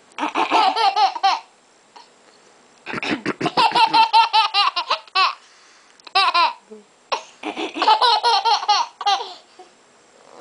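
A baby laughing in four bouts of rapid, high-pitched pulses, the longest about two and a half seconds, with short quiet gaps between them.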